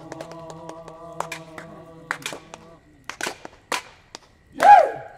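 The close of a sung piece: voices hold a final chord under a run of sharp clicks, and the chord stops about two and a half seconds in. Then come a few separate sharp knocks, and a short, loud call that rises and falls in pitch near the end.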